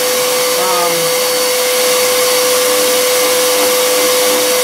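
A 14-gallon, 6 hp shop vac runs steadily as dust extraction for a Genmitsu PROVerXL CNC router. Under it the router's spindle turns with a steady whine as its bit cuts into a pine board.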